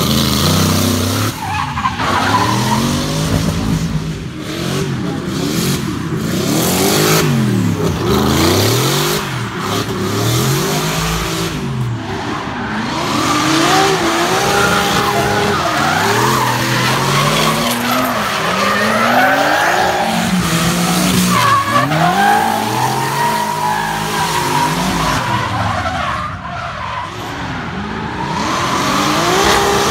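Porsche V8 engine in a drifting Nissan Silvia S14, revving up and falling back over and over through the slides, with tyre squeal from the sliding rear wheels.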